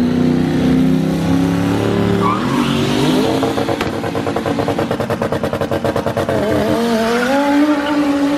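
A car doing a burnout: the engine revs up about two and a half seconds in, then holds high with a rapid, even stutter, with the tyres squealing and spinning, and its pitch climbs again near the end.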